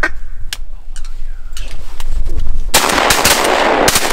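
Several shotguns firing in a rapid, overlapping volley that starts a bit under three seconds in, the shots ringing on between strikes.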